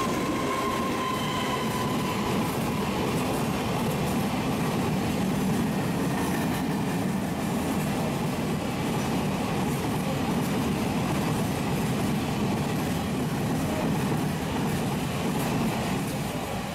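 Long Taiwan Railways freight train of grey covered wagons rolling steadily past at low speed: an even rumble of wheels on rail. A high squeal fades out about two seconds in, as the electric locomotive draws away.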